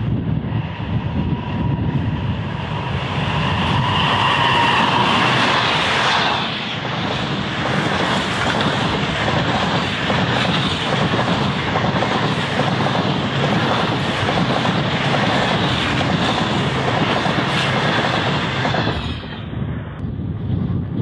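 An NR class diesel-electric locomotive hauling The Ghan passenger train comes up close, its engine tone rising and getting louder until it passes about six seconds in. The long rake of stainless-steel passenger cars then rolls by with steady wheel noise and regular clickety-clack over the rail joints, dropping away near the end.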